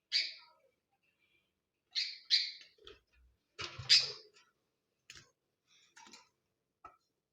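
Pet parrot giving short, sharp calls: one at the start, two in quick succession about two seconds in, and the loudest about four seconds in, followed by a few fainter clicks and chirps.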